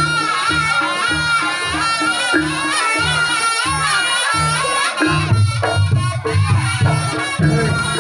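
Reog Ponorogo ensemble music: a wavering reed-trumpet (slompret) melody over a regular low drum beat about twice a second, the drumming turning denser about five seconds in.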